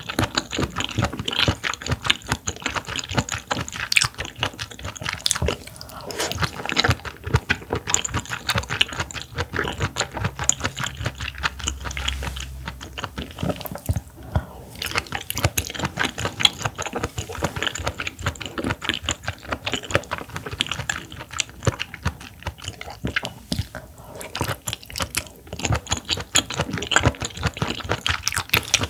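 Close-miked chewing of raw clam meat: a dense run of wet, crisp clicks and crackles with no pauses.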